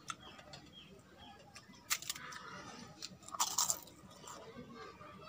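Close-up eating sounds: crisp fried papad crunching and mouth chewing. There are sharp crackles in a short burst about two seconds in and a louder, denser burst around three and a half seconds in.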